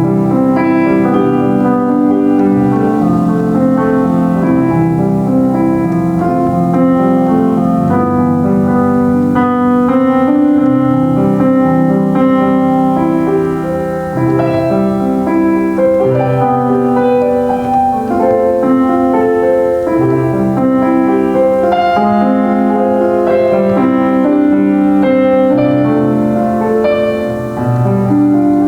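Solo piano playing, a melody moving over sustained chords in the bass.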